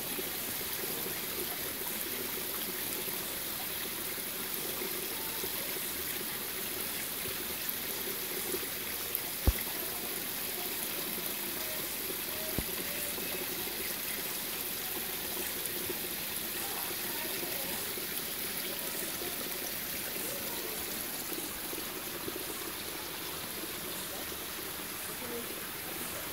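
Steady rushing and trickling of a small waterfall over a rock face, running low after little rain. A single sharp click about nine and a half seconds in.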